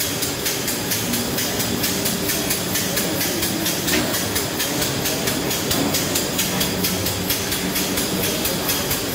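Kaşar cheese dicing and shredding machine running: a steady motor hum under a fast, even clatter.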